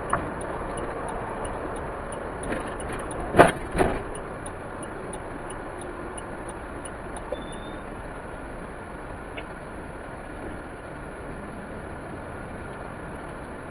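A vehicle driving: a steady road and engine noise, with two sharp knocks half a second apart about three and a half seconds in.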